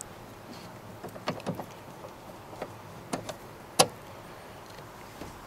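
Scattered small metallic clicks and taps from hands working the top pin out of a Saab convertible-top hydraulic cylinder's mount, about seven in all, with one sharper, louder click near the end.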